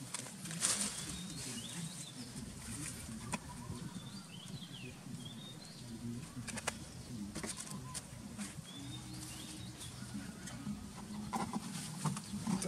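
Small birds chirping in short, scattered calls, over a faint low hum. Occasional light clicks and rustles from a seasoning packet and a plastic bottle being handled over a metal bowl.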